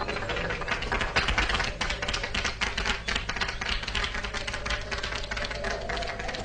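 Rapid, irregular clicking or tapping, several clicks a second, over a low steady hum.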